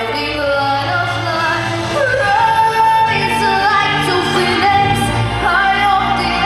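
A female solo voice singing a pop song with instrumental accompaniment, sliding between notes and holding one long note a little past two seconds in.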